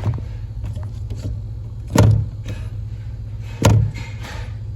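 Two knocks about a second and a half apart, the brake pedal of a Honda Civic Hybrid being pressed and let back, over a steady low hum inside the car. The pedal is being worked to test a brake light switch that does not switch on reliably.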